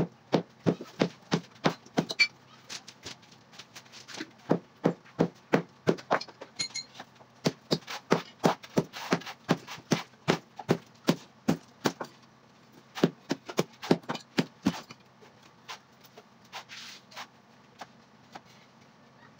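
Repeated sharp knocks of masonry work on concrete hollow blocks, about two to three strikes a second in runs, stopping about fifteen seconds in.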